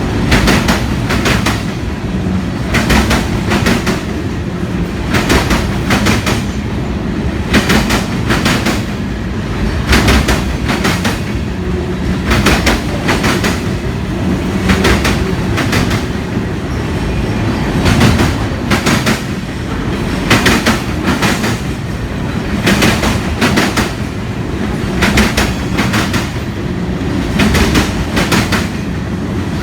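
Autorack freight cars rolling past with a steady low rumble. Their wheels clack over the rail joints in regular pairs about every two and a half seconds.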